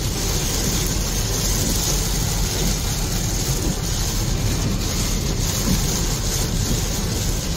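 Steady noise inside a car cabin driving through heavy rain: a low road and engine rumble under a hiss of rain and wet tyres.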